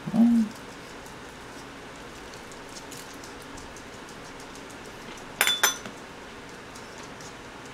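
A short hummed "mm" right at the start. Then metal cutlery clinks twice in quick succession against a dish about five and a half seconds in, with faint small clicks in between.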